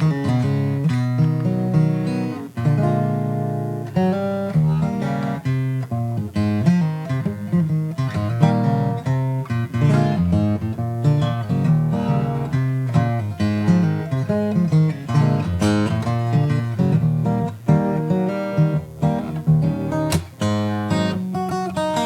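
Acoustic guitar music, strummed chords and quick picked notes, with no singing.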